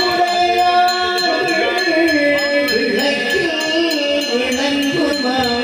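Temple brass hand bell rung steadily in aarti worship, a quick even ringing with a sustained ring tone, over devotional music with wavering melodic lines.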